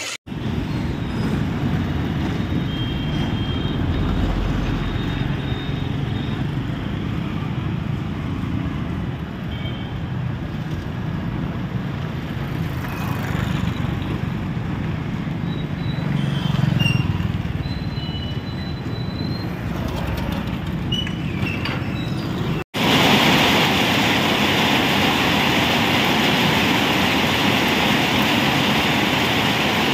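Road traffic rumbling steadily. About three quarters of the way through it cuts off abruptly and the louder, even hiss of heavy rain falling on a road takes over.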